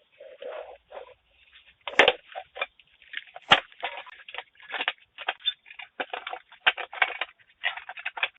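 Irregular crackling and rustling noises, a quick string of short sharp bursts with no steady tone. It is picked up through a video doorbell's microphone, which cuts off everything above the midrange.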